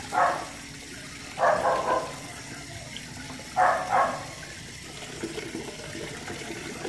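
Water splashing into a plastic basin in three short bursts as a puppy is washed, with softer rustling of a wet cloth near the end.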